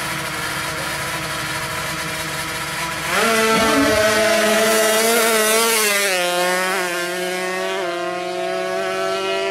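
155cc two-stroke drag bike engines running at high revs with a buzzing, chainsaw-like tone. The sound gets louder about three seconds in, then its pitch drops in a few steps.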